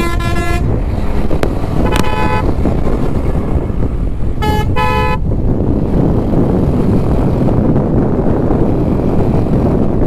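Motorcycle riding at speed along a highway, with steady wind and engine noise, cut by horn honks: one ending just after the start, a short honk about two seconds in, and two quick honks about four and a half seconds in.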